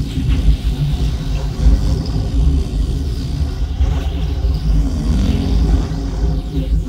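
A loud, steady low rumble, dense in the deep bass, with no clear breaks.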